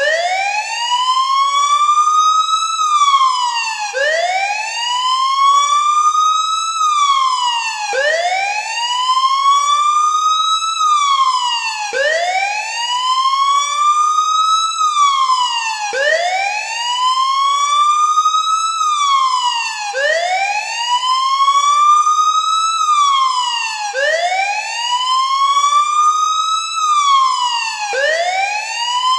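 A siren wailing in a steady repeating cycle, about once every four seconds. Each wail rises in pitch for about three seconds, then drops quickly.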